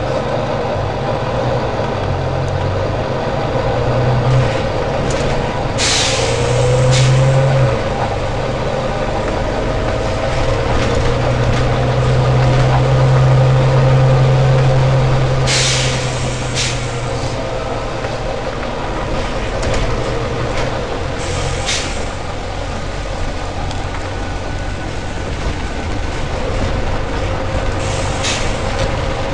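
Volvo B9TL bus's diesel engine running with a whine that glides up and down, louder for a few seconds about halfway, while its air brake system lets out short sharp hisses about six times.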